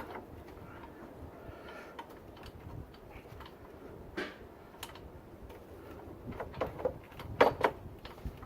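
Scattered light clicks and knocks of hand tools and metal parts being handled while working on an engine's accessory bracket, with the loudest few knocks about seven seconds in.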